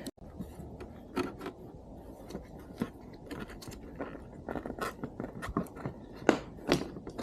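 Hand tools and small screws being handled while the mirrors come off a motorcycle: irregular light clicks, taps and scrapes, with a few sharper knocks scattered through.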